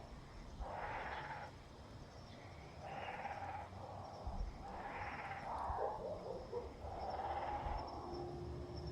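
Nestlings giving harsh, hissy begging calls, about one call every two seconds.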